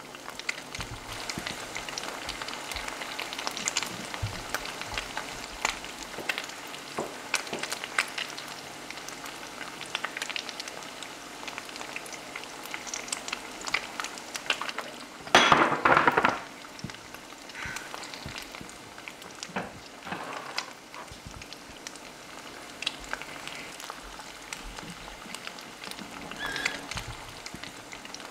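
Frying pan sizzling and crackling steadily, with many small pops and a brief, much louder burst about halfway through.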